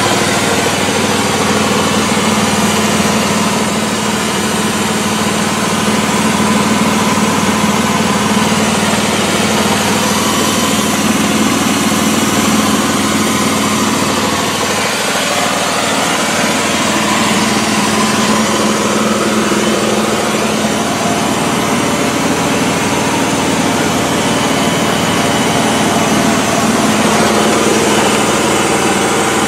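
Small gasoline engine of a portable air compressor running steadily at a constant speed.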